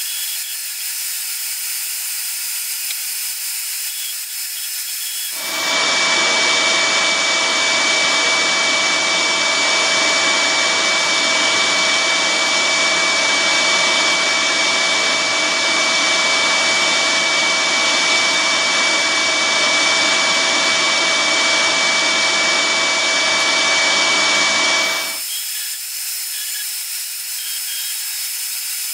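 Rikon 14-inch band saw resawing green olive wood. A steady high hiss gives way about five seconds in to a much louder, steady cutting noise with a high whine. This stops about four seconds before the end, leaving the quieter hiss.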